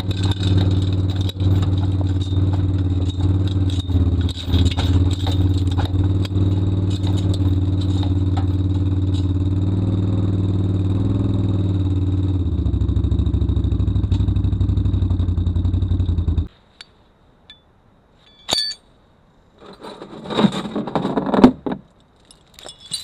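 A Can-Am Outlander ATV's engine runs steadily while it tows a steel forestry trailer over rough ground, with the trailer frame clattering throughout; the sound cuts off suddenly about 16 seconds in. Near the end a click is followed by a metal logging chain jingling and clinking as it is handled.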